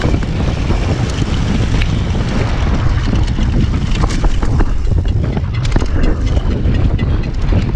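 Wind buffeting the microphone of a downhill mountain bike at speed, over a steady rumble of tyres on loose dirt, with scattered sharp rattles and knocks from the bike.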